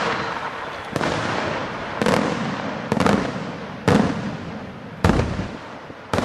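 A series of aerial firework shells (bombe da tiro) bursting overhead, about one sharp bang a second, six in all, each trailing off before the next.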